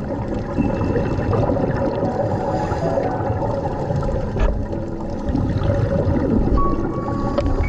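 Steady, deep rush of water noise with no speech, as picked up on a dive camera's soundtrack.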